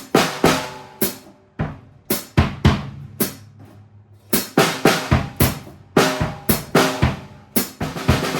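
Drum kit played in a loose improvised groove, with irregular hits and drums ringing after the strikes. The pattern thins out briefly around the middle, then gets busier from about halfway through.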